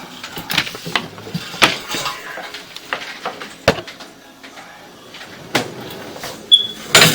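Irregular clicks and knocks of things being handled, growing denser and louder near the end, with a brief high beep shortly before the end.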